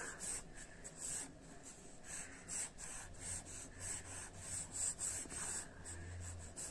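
Pencil scratching across drawing paper in quick, repeated sketching strokes, about two or three a second.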